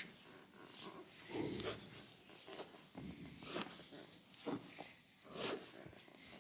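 Hands massaging an oiled leg: a run of rubbing strokes on the skin, roughly one a second.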